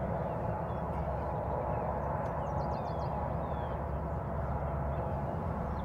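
Steady outdoor background noise, a low even rush with no clear source, with a few faint, high, quick bird chirps about two to three seconds in.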